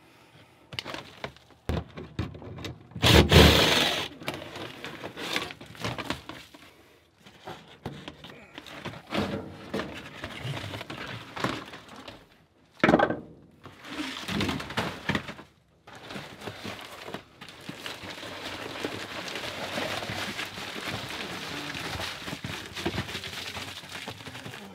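Flexible foil dryer vent duct being handled and pulled loose, its foil crinkling and crackling in irregular bursts. There is a louder crackle about three seconds in and another about thirteen seconds in, then a steadier rustle through the last several seconds.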